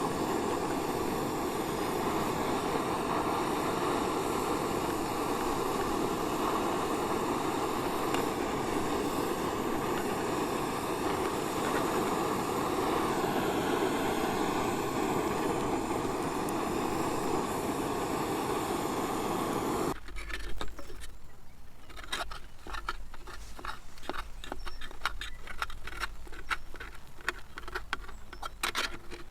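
Camp cooking: a steady rushing hiss, typical of a camping stove burner, runs for about twenty seconds. It then cuts to quieter, quick scraping and tapping of a utensil in a pan.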